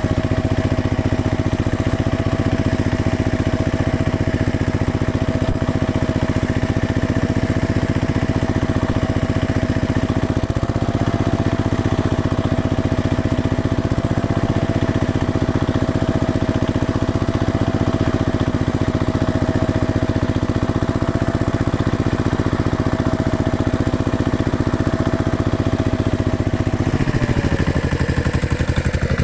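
Heavy construction machine's engine running steadily with a steady whine over it; about 27 seconds in the engine note drops, as the machine slows.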